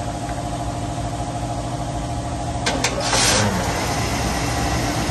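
1994 Chevrolet Caprice's V8 engine running steadily at idle, with a short hiss and a slight rise in level about three seconds in.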